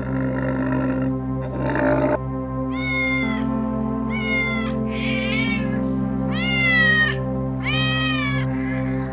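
A domestic cat meowing five times, each meow a separate call with a falling pitch, over a steady music drone. A short rough noise fills the first two seconds before the meows begin.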